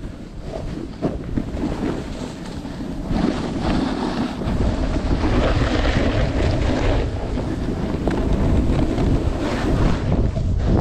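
Wind rushing and buffeting the microphone while riding fast down a ski slope, with edges scraping and hissing over chopped-up snow. The rush grows much louder and heavier about four seconds in.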